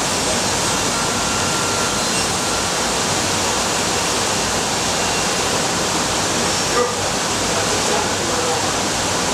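Steady, even rushing noise, with one brief knock about seven seconds in.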